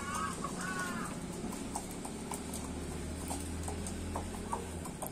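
Chickens clucking a few times in the first second, with many short sharp taps scattered throughout and a steady low hum that cuts off near the end.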